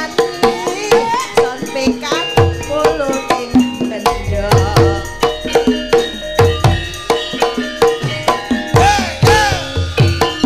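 Javanese gamelan music, led by kendang hand drumming with deep strokes that fall in pitch, over repeated struck metal notes.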